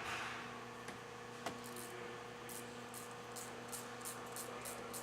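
Ratchet turning a 5mm Allen socket to loosen a set screw, clicking in short bursts about three times a second from about halfway in, with a couple of single clicks before that.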